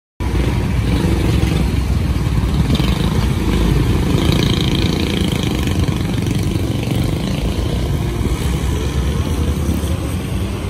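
Road traffic driving past close by: motorcycles and cars, a steady mix of engines running and tyre noise.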